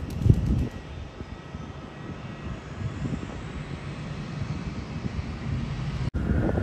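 Jet airliner engines rumbling steadily, with a faint high whine over the low noise. The sound drops out for an instant near the end.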